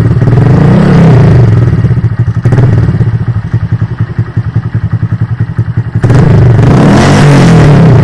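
Motorcycle engine running through an Akrapovic carbon slip-on muffler with no baffle insert fitted. It is revved for about two seconds at the start and again about six seconds in, and idles in between.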